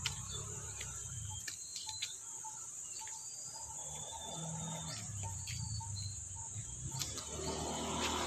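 Steady high-pitched drone of insects in a tropical garden, with birds chirping now and then in short whistled notes. A low rumble runs underneath, and a brief rustle comes near the end.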